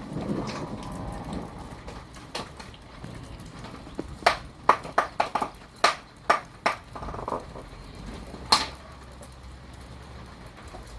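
A run of sharp clicks and knocks, about a dozen in quick succession from about four seconds in, and one more a little later, over a faint background noise.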